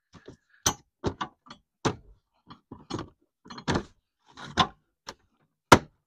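Minivan's plastic interior cargo-area trim panel being handled and pressed back into place: a dozen or so short, irregular plastic knocks and clicks, the loudest just before the end.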